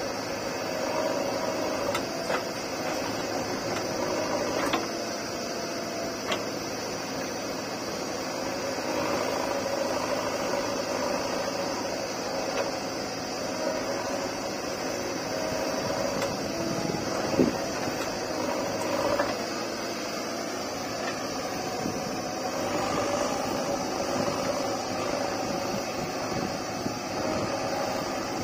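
JCB 3DX backhoe loader's diesel engine running steadily as it works its backhoe arm, with a tractor's engine running alongside. A few short knocks come through, the loudest about two-thirds of the way in.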